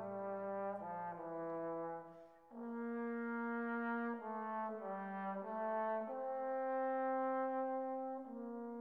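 Slow brass music: a melody of held notes, with a brief break about two and a half seconds in and long sustained notes in the second half.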